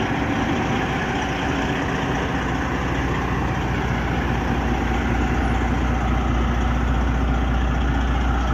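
Freightliner Columbia semi truck's diesel engine idling steadily.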